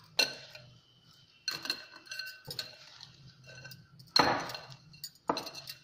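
A glass mixing bowl and wrist bangles clinking as a hand kneads chopped bathua leaves with gram flour in the bowl: a handful of short ringing clinks, the loudest about four seconds in.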